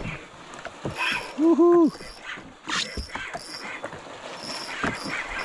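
Wind and water noise with scattered knocks and handling sounds. About a second and a half in, a short pitched squeak or hoot rises and falls twice; it is the loudest sound.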